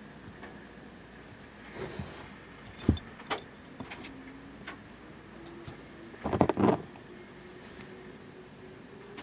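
Small clicks and taps of steel tweezers handling tiny plastic model parts on a cutting mat, with a louder flurry of knocks about six and a half seconds in.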